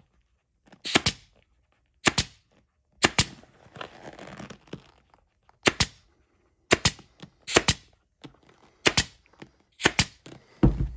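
Pneumatic upholstery stapler firing staples one at a time through vinyl into a plastic ATV seat pan: about eight sharp shots at uneven intervals of roughly a second.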